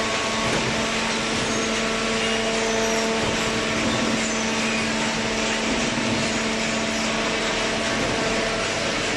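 Vertical hydraulic baler's power unit (electric motor and hydraulic pump) running steadily: a constant hum with a steady whine over machine noise.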